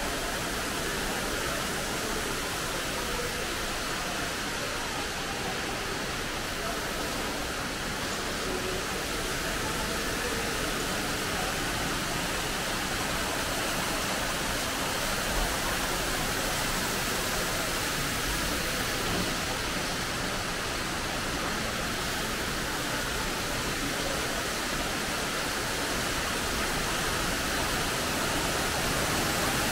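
Steady rushing of an indoor man-made waterfall pouring down an artificial rock wall, growing a little louder near the end.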